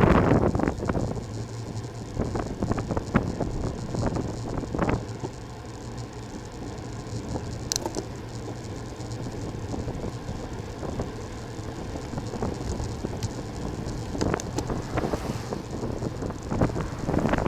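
Wind rushing over a moving camera's microphone with steady road rumble, broken by scattered knocks and rattles: a flurry at the start, a sharp click about eight seconds in, and more near the end.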